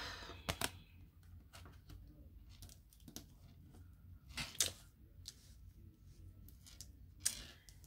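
Tarot cards being handled and slid over a wooden tabletop: faint scattered taps and scuffs of card stock on wood, with a few sharper clicks.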